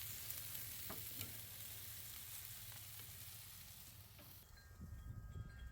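Chicken souvlaki skewers sizzling on a charcoal grill, a steady hiss with a few small ticks that cuts off suddenly about four and a half seconds in.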